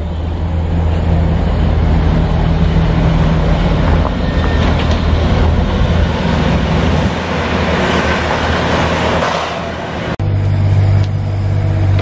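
Mini excavator's diesel engine running steadily, a low drone with a noisy rattle over it; the drone changes abruptly about ten seconds in and then runs on.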